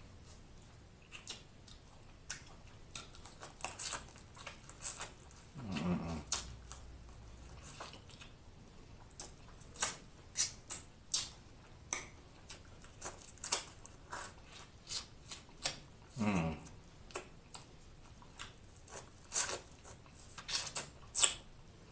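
Close-up eating sounds of snow crab: wet lip smacks, sucking and small clicks as the meat is pulled from the legs and fingers are licked. Twice, a short hum of enjoyment from the eater that falls steeply in pitch.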